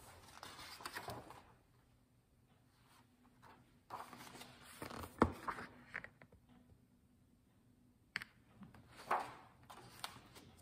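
Pages of a large hardcover picture book being turned and the book handled: several paper rustles and soft knocks, with a sharp tap about five seconds in.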